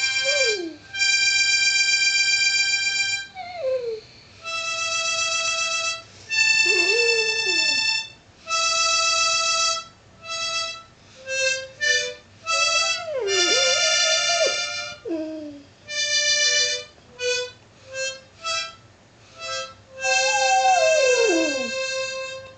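Harmonica played badly in short held notes and chords that stop and start every second or two. A Flat-Coated Retriever howls along several times, its voice sliding up and down through the notes, with a long falling howl near the end.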